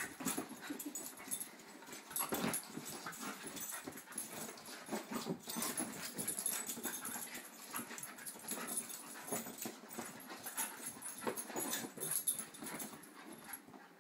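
Two dogs, one a beagle, play-wrestling on upholstered furniture: irregular scuffling, knocks and dog play noises.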